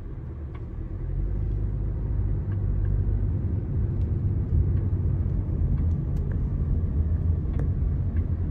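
Low rumble of a car driving, heard from inside the cabin, growing louder about a second in as the car picks up speed.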